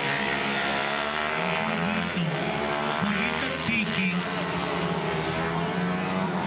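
Engines of small CG-class racing motorcycles, several at once, revving up and down as the riders work the throttle through the corners, the pitch rising and falling again and again.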